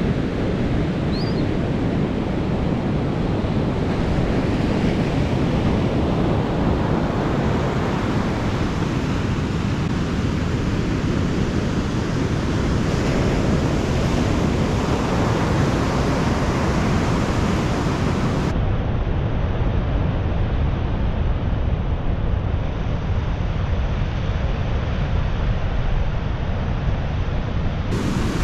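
Ocean surf breaking on a sandy beach: a steady rush of waves, with wind buffeting the microphone and adding a low rumble.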